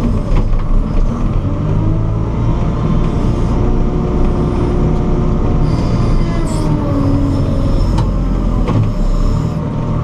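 The diesel engine of a JCB 4CX backhoe loader running under load while pushing snow, heard from inside the cab, its pitch shifting a few times. A couple of sharp knocks sound near the end.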